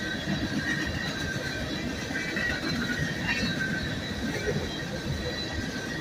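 Freight train of loaded coal cars rolling steadily past: a continuous rumble of steel wheels on rail, with a thin, steady high-pitched squeal of wheel flanges over it.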